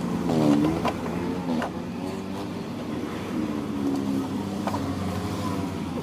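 A vehicle engine running steadily, with a brief falling tone about half a second in and a few sharp metal clicks and knocks.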